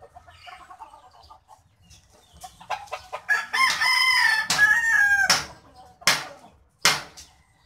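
A rooster crowing once, a long call of about two seconds starting around three seconds in, dropping in pitch at the end. It is followed by a few short, sharp sounds.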